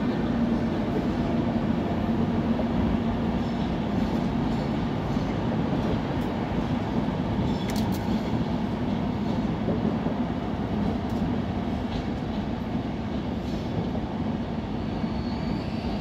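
Passenger train coaches rolling slowly past as the train pulls into a station: a steady rumble of wheels on rail with a low hum. A faint high-pitched squeal starts near the end.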